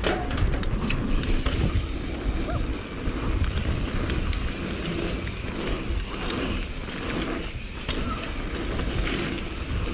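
Mountain bikes riding down a muddy dirt trail: tyres rolling over the ground with scattered rattles and clicks from the bikes, and wind rumbling on the camera microphone.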